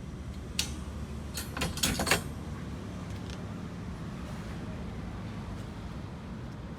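A single sharp click, then a quick cluster of clicks and rattles about a second and a half in, over a steady low hum.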